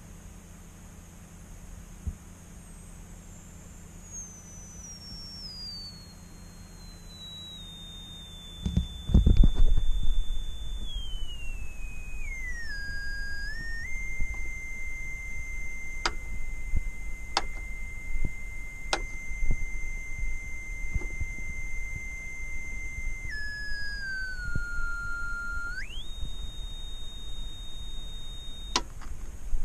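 Instek function generator driving an old speaker with a single pure tone that steps down in pitch as the frequency dial is turned: from very high to around 2 kHz, where it holds, then lower still before jumping back up near the end. A loud low thump and rumble comes about nine seconds in, and a few sharp clicks come later.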